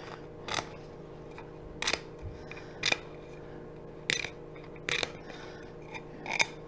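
Small round hand scraper scraping old glue residue off a teak chair rail around its dowels: about six short scraping strokes, roughly one a second. This cleans the joint down to bare wood ready for re-gluing.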